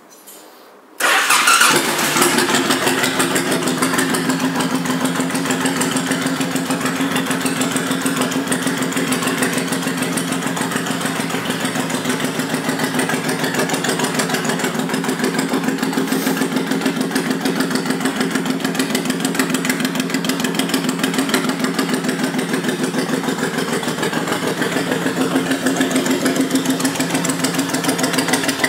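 A 2005 Honda VTX1800F's 1800 cc V-twin, fitted with Vance & Hines exhaust pipes, starts about a second in and settles into a steady, loping idle.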